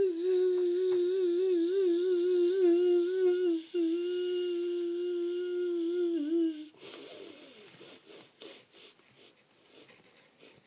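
A person humming one held, slightly wavering note in imitation of a bee's buzz, voicing a bee hand puppet. It breaks once briefly and stops about two-thirds of the way in, leaving faint rustling.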